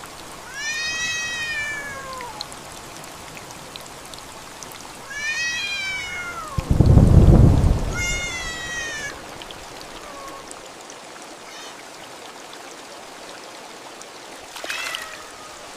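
A cat meowing, about five long calls that fall in pitch, over the steady hiss of rain. A loud rumble of thunder comes about seven seconds in.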